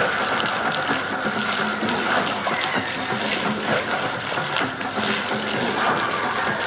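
Water jet from a homemade pool fountain splashing down onto the pool surface, a steady rushing hiss, with music playing faintly underneath.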